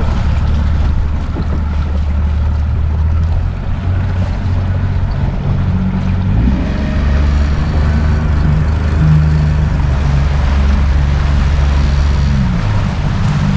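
A 40 hp outboard motor runs under way, pushing the boat, with water and wind noise over it. The engine note shifts about halfway through and again near the end as the throttle changes.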